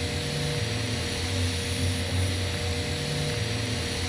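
TIG welding arc burning steadily as the torch cup is walked along the joint, a constant buzzing hum with hiss over it.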